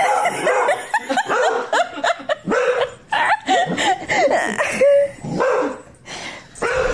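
A dog barking repeatedly, a series of short barks with brief pauses between them.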